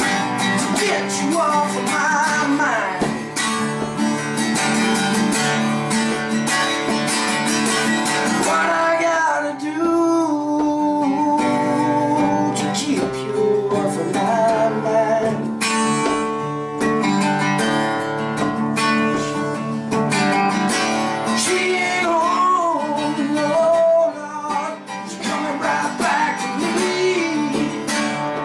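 Acoustic guitar strummed steadily while a man sings along.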